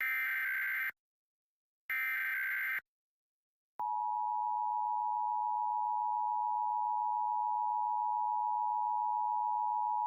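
Emergency Alert System test: two digital SAME header data bursts, each about a second long and a second apart. About four seconds in, the steady two-tone EAS attention signal (853 and 960 Hz) begins and holds.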